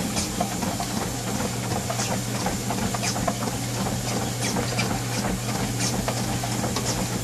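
Motorized treadmill running at about 6 miles an hour: a steady motor hum and belt hiss, with scattered footfalls landing on the moving belt.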